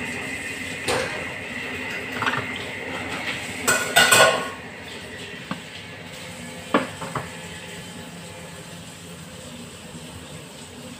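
Kitchen clatter of cookware and utensils: a few scattered knocks and clinks, the loudest cluster about four seconds in, with a thin steady high tone through the first half.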